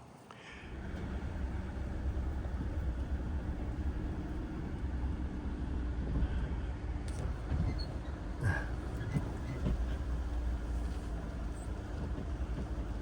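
Vehicle driving: a steady low engine and road rumble that comes up about a second in and holds, with a brief knock past the middle.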